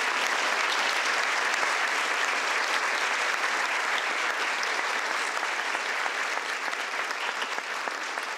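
Audience applauding, a steady clapping of many hands that eases slightly near the end.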